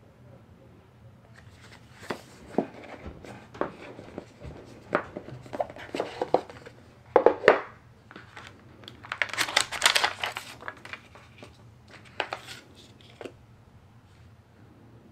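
Packaging being handled and opened: irregular crinkling and rustling with sharp clicks and a short tearing sound, busiest in two bursts midway through, over a faint low room hum.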